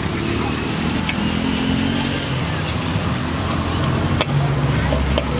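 Hot oil sizzling and bubbling steadily as coated strips deep-fry in a wok, over a low hum, with a single sharp click about four seconds in.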